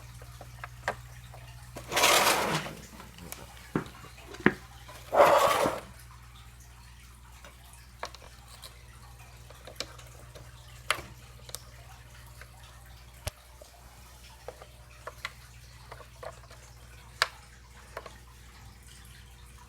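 Steady low hum from a fluorescent lamp fixture while its starter is handled: two loud scraping, rustling bursts about two and five seconds in, then scattered small clicks and ticks.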